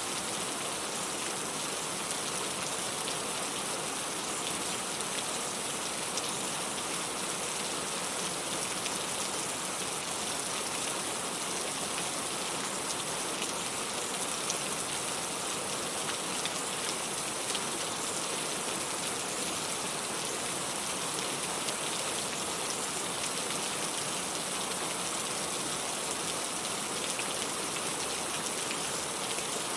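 Steady rain falling: an even, unbroken hiss of many drops, brightest in the high frequencies, with faint scattered drop ticks.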